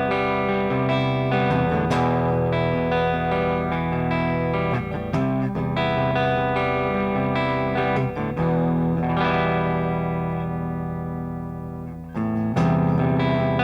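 Electric guitar played through a Rullywow Plexicruise, a Marshall-voiced distortion pedal cloned from the Plexidrive, giving a brown, amp-like overdriven tone. The player strikes chords and riffs; one chord rings out and fades for a few seconds before a fresh chord is struck near the end.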